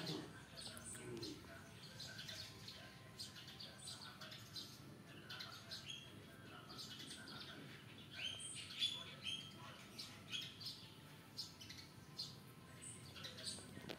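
Small birds chirping and tweeting in quick, high calls, with a few longer held notes about eight to nine seconds in.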